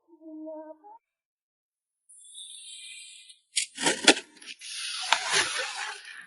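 A short sung melody line ends about a second in. After a brief silence, plastic packaging crinkles and rustles, with a few sharp taps or clicks near the middle, the loudest moment, as photocards are packed.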